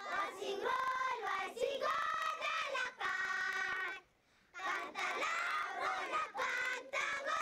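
A group of children singing together in high voices, held phrases with a short break about four seconds in.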